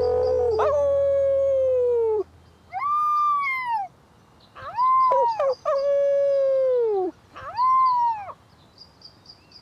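Four-week-old wolf pup howling, three short, high, arching howls that take turns with longer, lower howls from men imitating wolves. The lower howls sag in pitch at their ends. The pup's howls rise and fall.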